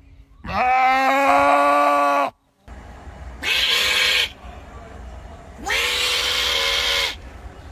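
A goat gives one long, loud bleat. After a short break, an opossum opens its mouth wide and lets out two hoarse, hissing cries, each about a second long.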